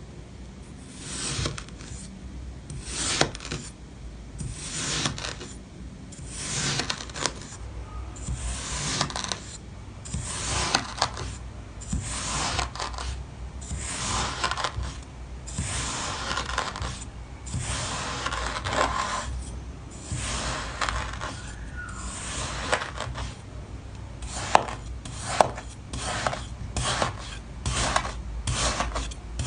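Kinetic sand being cut, a series of gritty rasping strokes. They come about one every second or two, then quicker, several a second, near the end.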